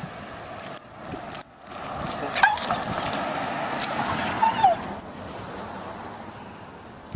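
A bulldog whining and yelping in short, pitch-bending cries as it protests on the leash at the sight of other dogs. A louder rush of noise runs under the cries from about a second and a half to five seconds in.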